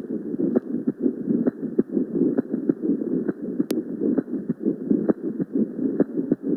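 Pericardial friction rub heard through a stethoscope: a continuous rough, grating noise with faint regular clicks keeping time with the heartbeat. It is the sign of inflamed pericardial layers rubbing together, as in pericarditis.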